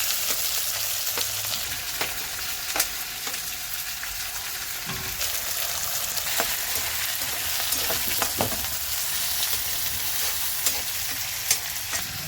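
Chopped onion frying in hot oil with whole spices: a steady sizzle with scattered pops and crackles, and now and then the scrape of stirring.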